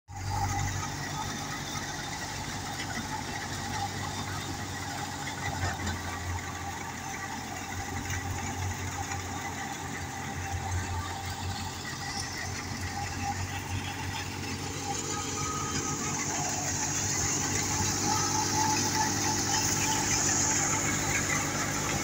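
Belt-driven wheat thresher running steadily while threshing wheat, powered by a tractor, with a steady low engine hum. A hiss grows louder from about halfway through.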